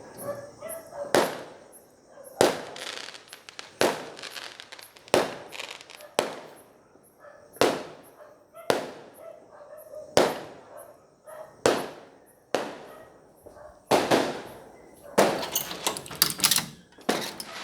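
Multi-shot consumer firework cake firing shot after shot, a sharp bang about every second and a half, each trailing off briefly, with a quicker run of bangs near the end.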